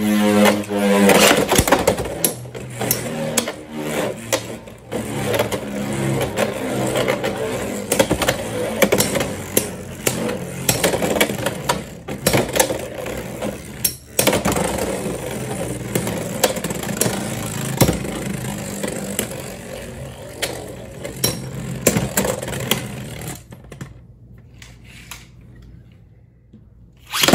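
Two Beyblade X spinning tops, Hells Scythe 3-60B and Phoenix Rudder 9-70G, whirring and scraping on a plastic stadium floor and clashing again and again with sharp clicks, after a launcher whir that fades in the first second. The spinning dies away about 23 seconds in, with a few last faint rattles as the tops come to rest.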